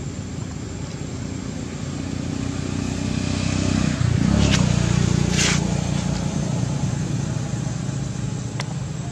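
Low engine hum of a passing motor vehicle, growing louder toward the middle and then fading away. A brief hiss about halfway through and a small click near the end.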